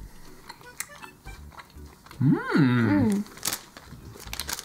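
A person chewing a gummy candy gives a long, swooping "mmm" of enjoyment about two seconds in, rising and falling in pitch. Soft clicks from chewing and handling are heard around it.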